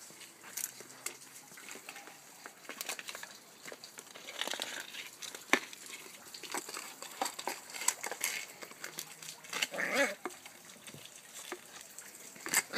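West Highland white terrier puppy playing with a flower pot: scattered knocks, scrapes and clicks, with a short yip about ten seconds in and a bark starting right at the end.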